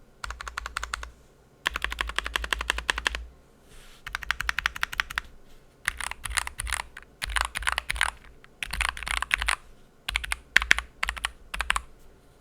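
Typing on an Akko ACR67 mechanical keyboard with lubed JWK Lagoon tactile switches and HK Gaming Dreamscape keycaps: rapid keystrokes in about seven short bursts with brief pauses between them.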